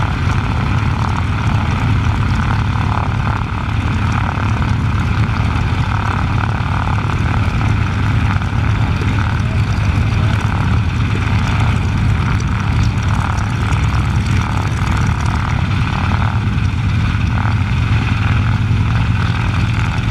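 Several vintage biplanes' radial engines, Continental seven-cylinders among them, running steadily on the ground: a loud, even, low drone.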